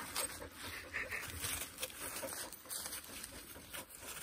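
Dry fallen leaves rustling and crackling under footsteps, in irregular small crackles.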